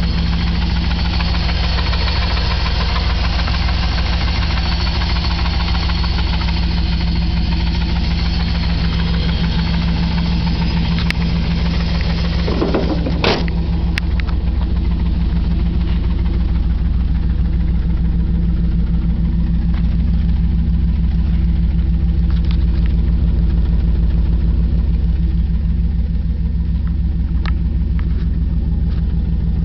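1997 Chevy K1500's Vortec 350 5.7-litre V8 running steadily with a knock that the owner suspects is a connecting rod knock. About 13 seconds in, a brief whine rises and falls in pitch.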